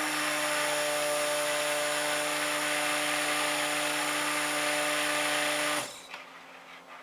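Handheld stick blender running steadily in a plastic bucket, mixing soap-making oils with colloidal oatmeal and cream; a steady motor whine that switches off near the end.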